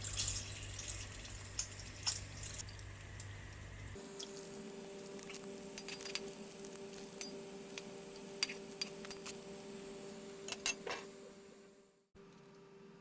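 Scattered light clinks and taps of kitchen utensils against dishes, over a steady low hum that gives way to a fainter, higher hum about four seconds in.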